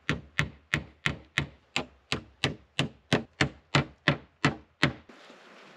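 Hammer striking a wooden plank: about fifteen steady blows, roughly three a second, stopping about five seconds in.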